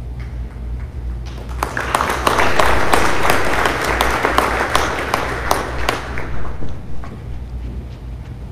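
Applause from a small, spread-out audience in a school gymnasium. It starts about a second in, with separate claps audible, and dies away after about five seconds.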